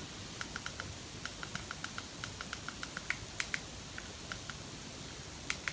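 Faint, light clicks, about twenty, mostly in quick runs of several a second with short pauses: a TV remote's buttons being pressed to scroll through a streaming app's menus.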